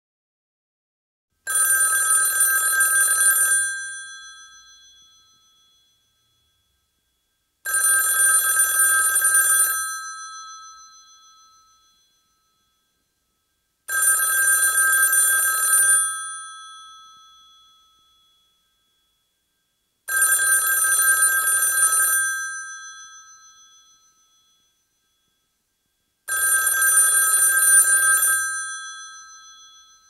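Old rotary telephone's bell ringing: five rings of about two seconds each, spaced about six seconds apart, each ring dying away after it stops.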